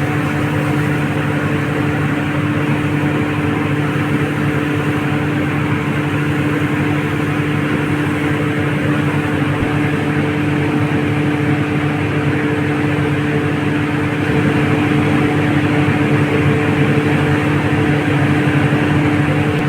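Steady, loud machine drone with a low hum, like a running fan motor; it grows slightly louder about fourteen seconds in.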